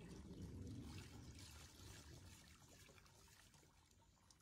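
Faint water pouring and trickling, growing quieter through the second half.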